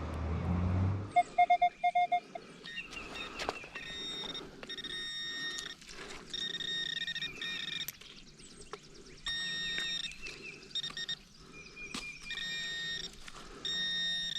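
Metal detector target tones: a short run of fast beeps about a second in, then repeated held high tones of about a second each, mixed with warbling tones, as the coil passes over buried metal. A few scattered clicks run under the tones.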